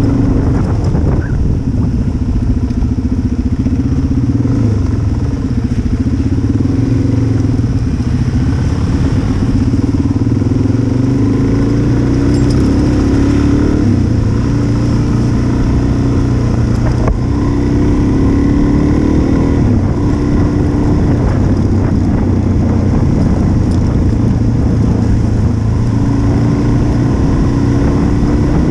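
Single-cylinder dual-sport motorcycle running at speed on a gravel road, heard from on board, its engine note climbing and dropping several times with throttle and gear changes, over a steady rush of wind and tyre noise.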